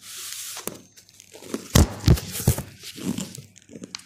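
Kitchen handling noises while working raw chicken: a short crinkly rustle, then three heavy thumps close together about two seconds in, followed by lighter knocks and clatter.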